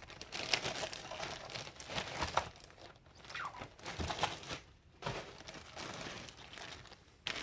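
Crinkling and rustling of packaging being handled and folded, with a few sharp clicks in between.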